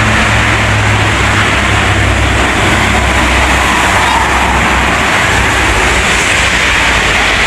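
Loud roadside traffic: tyre and road noise with a passing vehicle's low engine drone, which fades out about halfway through. No telolet horn sounds.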